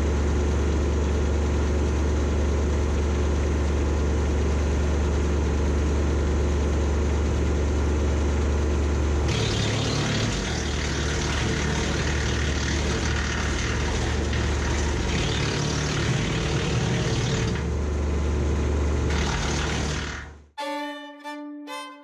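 Kubota compact tractor running a BECO wood chipper off its PTO: a steady low drone of engine and spinning rotor. About nine seconds in, branches are fed in and chipped with a loud, rough grinding for about eight seconds, then it eases back to the drone. Near the end the machine noise cuts off and fiddle music takes over.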